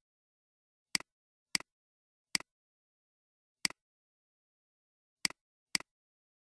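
Six sharp computer mouse clicks at irregular intervals, each a quick double tick, with dead silence between them.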